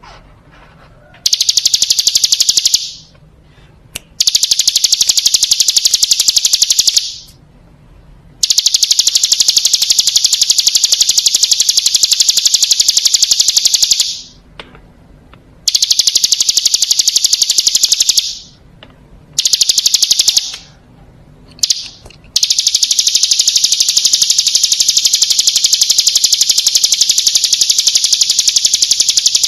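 Ciblek gunung, a prinia, singing long, high-pitched, rapid trills. They come in bouts lasting from about a second to seven seconds, with short pauses between, and the longest bout starts a little before the last third.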